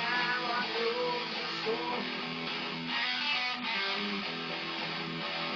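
Electric guitar playing an instrumental blues rock passage, with notes changing throughout and some sliding in pitch.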